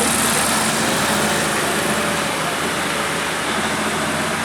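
Motor vehicle engine running steadily amid continuous roadside traffic noise, with no horn sounding.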